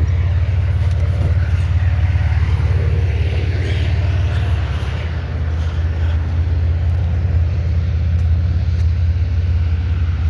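Pickup truck engine idling steadily, a low rumble.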